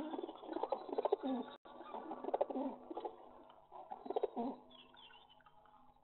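Pigeons cooing in a run of low, throaty phrases, about four of them, fading toward the end. The sound cuts out for an instant about a second and a half in.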